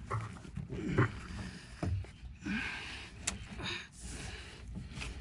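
A man catching his breath with short grunts and gasps after straining to lift a heavy pipe, with scattered knocks and clunks of the pipe being handled.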